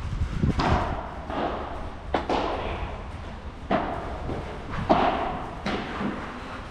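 Padel rally: the ball is struck back and forth with padel rackets and bounces, giving about six sharp pocks spaced roughly a second apart, each with a short echo.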